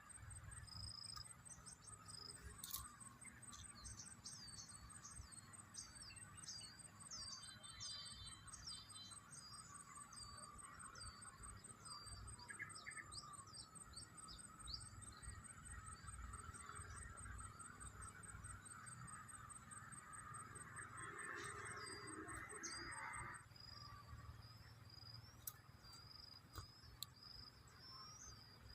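Faint bird chirps, many short high notes in quick series, thinning out after the first half, over a steady high insect trill that stops near the end.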